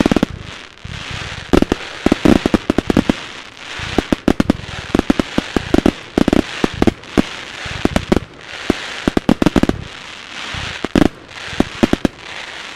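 Fireworks finale barrage: rapid clusters of sharp launch thumps and bursting bangs fired in quick succession, over a hiss of burning glitter stars that swells and fades every couple of seconds.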